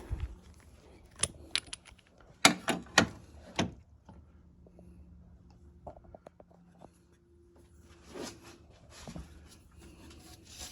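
Sharp clicks and knocks of hand tools being handled, with three louder knocks in quick succession and a few lighter ticks later.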